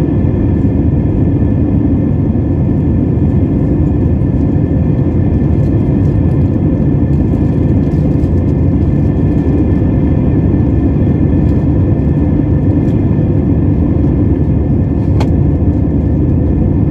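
Steady roar of an Airbus jetliner's engines and airflow heard from inside the passenger cabin, a deep rumble with a faint steady whine over it. A single light click about fifteen seconds in.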